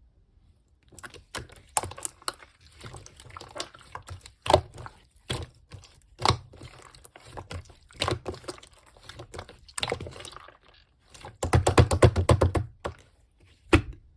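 Slime being squeezed and poked by hand: a string of irregular sticky clicks and wet crackles, with a fast run of popping clicks near the end.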